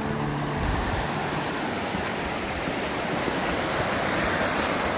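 Fast-flowing mountain river rushing over rocks, a steady, even roar of water.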